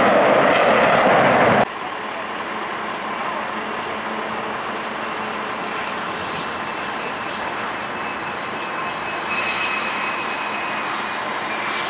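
Loud jet noise from a Blue Angels F/A-18 in flight for the first second or two, cut off abruptly. Then a quieter, steady jet engine sound with thin high-pitched whines from a Blue Angels F/A-18 rolling on the runway; the whine swells slightly near the end.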